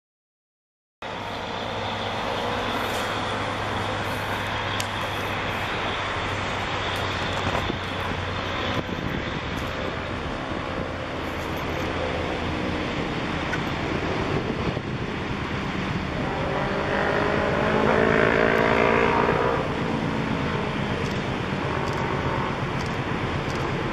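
Distant diesel locomotive engine running steadily as a train comes onto a long bridge. The sound starts after a second of silence and grows louder with a pitched tone for a few seconds about three quarters of the way through.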